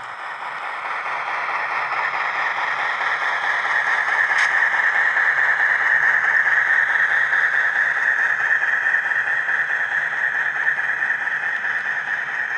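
HO-scale model diesel locomotive and hopper cars rolling past on the track: a steady whirring of motor and wheels on rail that builds as the train approaches and eases slightly as the cars go by, with a single small click about four seconds in.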